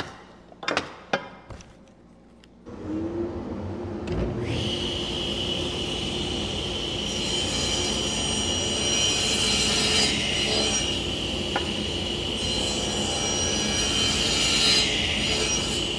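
Table saw switched on about three seconds in, spinning up to a steady high whine, then cutting a dado across a hardwood board in repeated shallow passes, the cutting noise swelling and easing with each pass. A few handling knocks before the saw starts.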